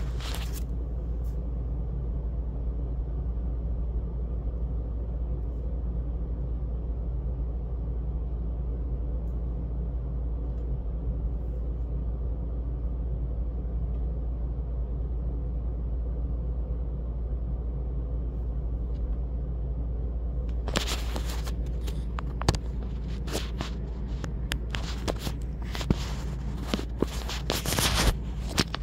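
A steady low hum runs throughout, with rustling, clicks and knocks starting about 21 seconds in.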